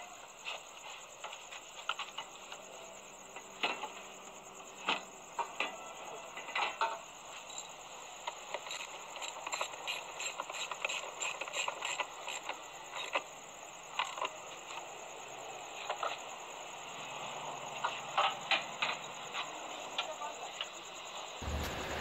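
Hand socket ratchet with an extension turning a bolt: scattered metallic clicks and knocks, with a quick run of ratchet clicks about nine to twelve seconds in.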